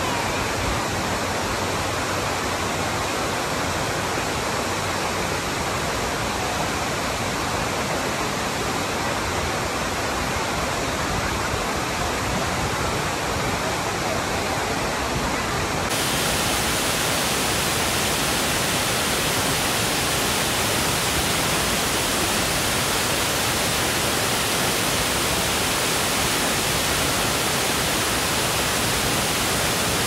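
Steady rush of the Kapuzbaşı waterfall's falling water, a dense even noise with no distinct events. About halfway through it abruptly turns brighter and hissier.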